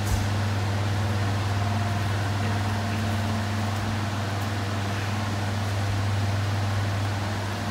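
Large electric pedestal fans running: a steady low motor hum with an even rush of air. A dull thump at the very start.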